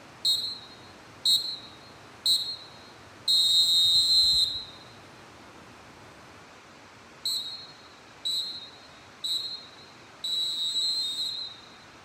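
Fox 40 Classic CMG pealess referee whistle blown in three short blasts about a second apart, then one long blast, the whole pattern played twice with a pause between. Each blast trails off with a short echo.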